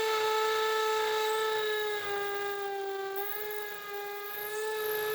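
An electric power tool's motor running with a steady high whine, its pitch sagging slightly a couple of times midway as if briefly loaded.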